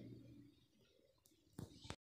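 Near silence: faint room tone, with a couple of soft brief clicks near the end.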